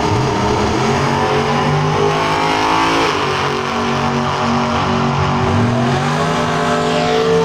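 Two drag cars launching side by side and accelerating hard down the strip, their engines rising in pitch under full throttle. The pitch drops and climbs again about three seconds in and once more near six seconds as the cars shift gear.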